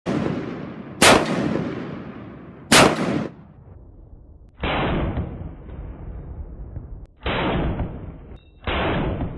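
AR-15-pattern carbine with an Osprey gas-piston conversion kit firing single shots, about six in all, spaced one to two and a half seconds apart, each report ringing out after the bang. The last three shots sound duller and more muffled than the first three.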